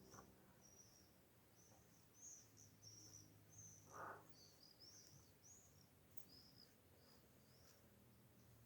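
Faint high-pitched bird chirping: a string of short, varied notes, with a brief soft rustle about four seconds in.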